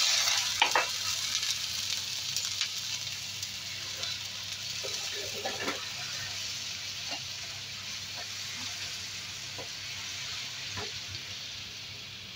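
Sugar and water sizzling in a hot nonstick frying pan as a syrup is being cooked. The sizzle is loudest right at the start, when the water meets the hot sugar, and then slowly fades, with a few light knocks of a bamboo spatula stirring in the pan.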